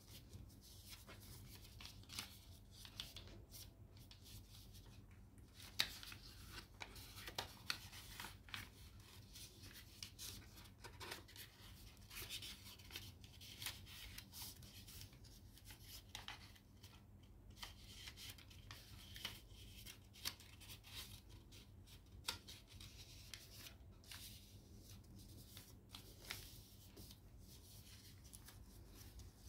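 Faint rustling and crinkling of a sheet of origami paper being folded and creased by hand, in many short, irregular scrapes and crackles, over a low steady hum.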